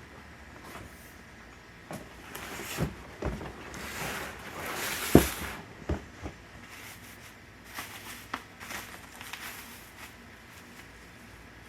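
Unboxing sounds: packaging rustling while parts of a mountain bike are handled, with scattered clicks and knocks. The loudest is a sharp knock about five seconds in.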